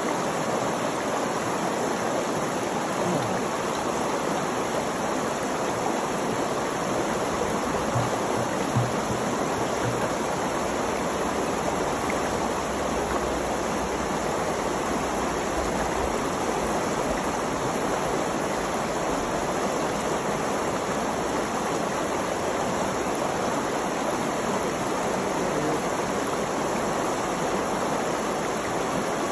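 Creek water flowing, a steady even noise with no breaks.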